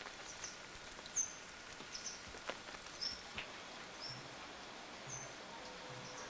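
Small birds chirping: short, high, dropping chirps repeated every half-second to a second over a steady background hiss, with a few faint clicks.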